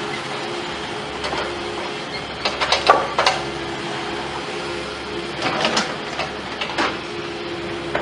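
A machine running with a steady hum, broken by two quick runs of sharp knocks or clanks, about two and a half and five and a half seconds in.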